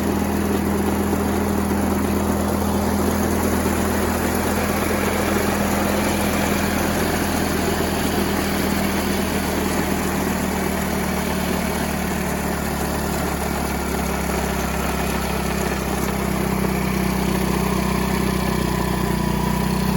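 A 49cc scooter engine fitted with a 100cc big bore kit, idling steadily just after its first start on the new cylinder.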